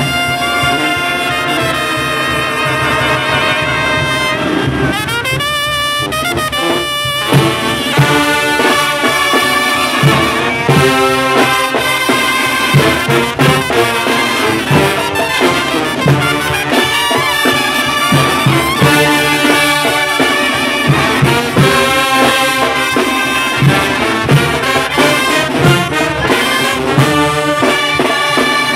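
Mexican brass band of trumpets, sousaphones, clarinets and drums playing a tune. Held horn notes waver at first, then about seven seconds in the drums come in with a steady beat under the melody.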